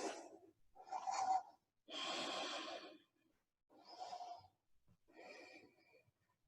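A person breathing audibly during a held yoga pose: four slow, separate breaths, in and out, with short silences between them.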